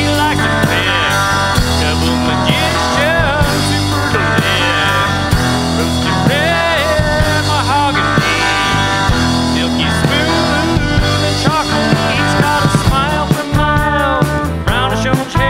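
Country-rock band playing, with strummed acoustic guitar, electric guitar, bass and drums, and no words sung. A lead line bends up and down in pitch throughout and turns busier near the end.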